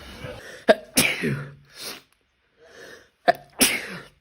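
A man sneezing twice: one sharp sneeze about a second in and another near the end, with a moment of dead silence between them.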